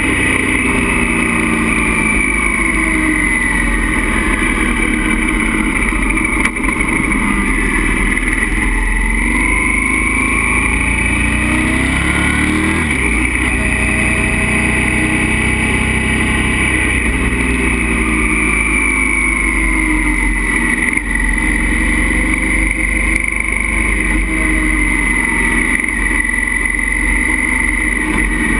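Motorcycle engine running at road speed, its pitch rising and falling as the bike speeds up and slows through a series of curves.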